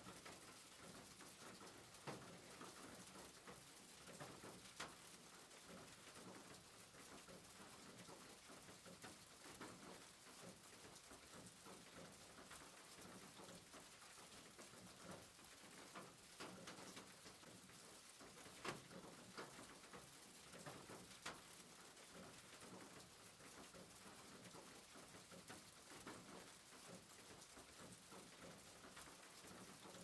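Faint, steady rain with scattered single drops pattering louder now and then.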